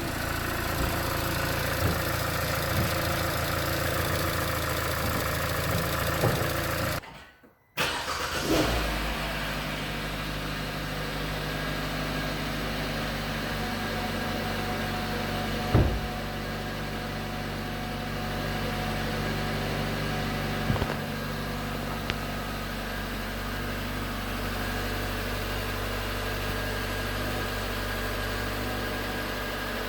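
2019 Hyundai Tucson's 2.0L Nu GDI four-cylinder engine running cold, with the knocking that the owner takes for piston slap. The sound drops out for about a second seven seconds in, then the engine is heard running again, with a couple of single sharp clicks later.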